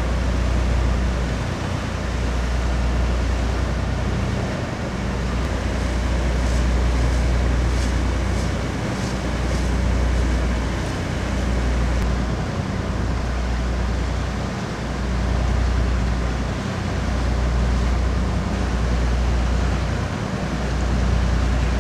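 Motorboat engine running steadily underway, with wind and water noise over it. It is a low drone that swells and dips every couple of seconds.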